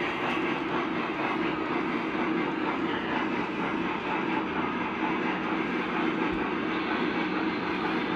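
Lionel O-gauge model trains running on three-rail layout track: a steady rolling rumble of wheels on rail with a constant motor hum.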